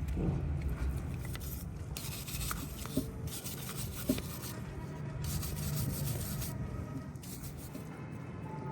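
Abrasive rubbing on a starter motor part, in strokes of a second or two, as in sanding or brushing it clean, with two sharp clicks in the middle.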